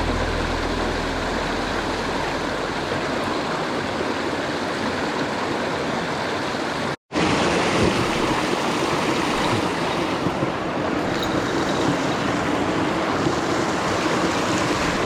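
Steady rush of a mountain stream, even and continuous, broken by a split-second gap of silence about seven seconds in.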